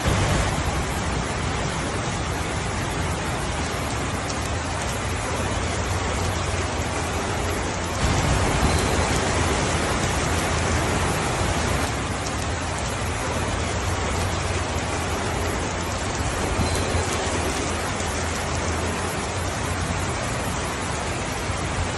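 Steady heavy rainfall, an even dense hiss with a low rumble beneath it, swelling a little louder for a few seconds about a third of the way in.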